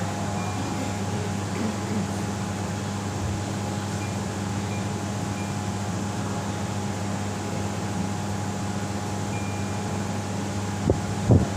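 Gree floor-standing air conditioner running: a steady fan rush with a low hum. A couple of short knocks near the end.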